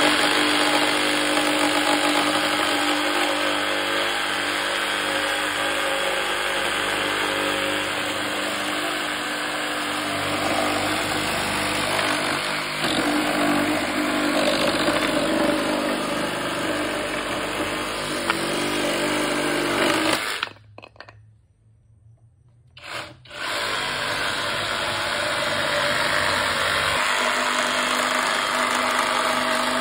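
Flex cordless reciprocating saw running at speed, its blade cutting through boards with nails in them, a steady buzzing stroke. It stops for about three seconds about two-thirds of the way through, then starts cutting again.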